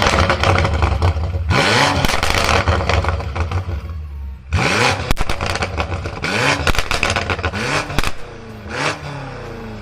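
Car engine blipped up through about four quick revs. Sharp exhaust pops and crackles come between the revs, thickest in the middle of the stretch.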